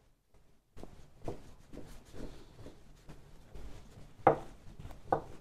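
Wooden massage roller rolled back and forth over the back of a hand: a run of soft rubbing strokes about two a second, then two sharper wooden knocks near the end, the first the louder.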